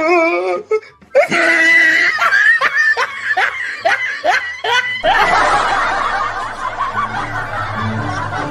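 A person laughing in a high-pitched snicker, short rising bursts at about two or three a second. About five seconds in, music cuts in suddenly.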